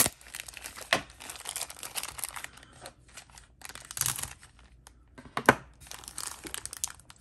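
Thin clear plastic bag crinkling and tearing as it is slit with a knife and pulled open by hand, with a few sharp clicks, the loudest about five and a half seconds in.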